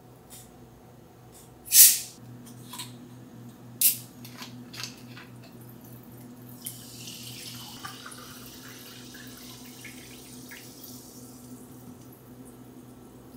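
A plastic bottle of carbonated water being opened: a sharp hiss of escaping gas about two seconds in and a second, shorter one about two seconds later, with a few small clicks of the cap. Then the sparkling water is poured into a glass tumbler, fizzing, and the fizz fades toward the end.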